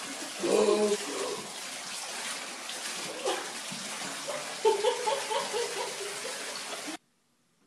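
Water from a tub spout pouring into a filling bathtub, a steady rush that stops abruptly about seven seconds in.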